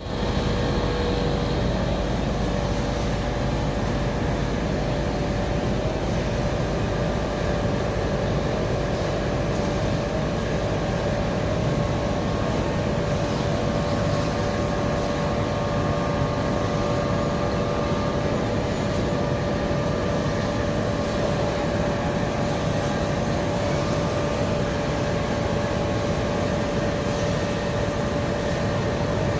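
Generator engine running steadily with a constant drone and a low rumble.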